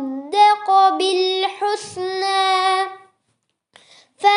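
A young voice chanting Quran recitation in a melodic, drawn-out style, holding long bending notes. It breaks off about three seconds in for a short pause.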